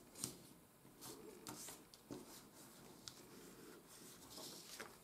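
Faint rustling and crinkling of glossy coated paper being folded and pressed flat by hand, in a few short, scattered bursts.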